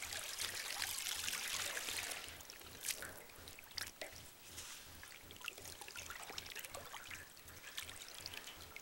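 Water sloshing and splashing in a galvanized metal tub as a fully clothed person sits down and lies back in it. A loud rush of water in the first two seconds, then scattered small splashes and drips.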